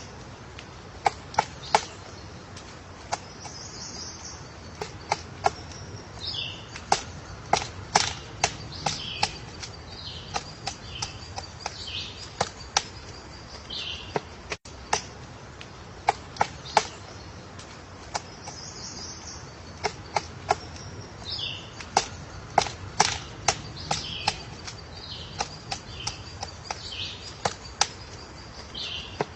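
Woodpecker pecking at wood: sharp single taps and quick pairs at irregular intervals, with high, falling bird chirps between them. The same stretch of sound repeats about halfway through.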